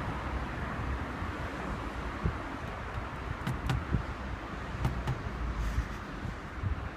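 Wind buffeting the microphone, a gusty rumble, with a few light clicks or taps around the middle.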